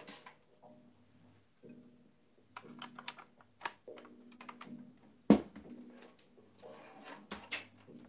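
Small clicks and taps from handling a metal AM4 CPU backplate and fitting it against the back of the motherboard inside a PC case, with one louder knock a little after the middle.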